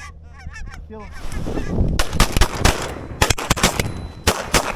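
Geese calling in quick repeated honks, then about two seconds in a rapid volley of about ten shotgun shots from several guns firing together.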